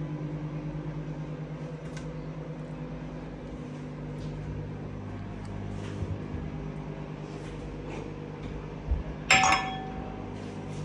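Steady electric hum of a microwave oven running. Near the end a kitchen cupboard door shuts with a sharp knock and a brief ring.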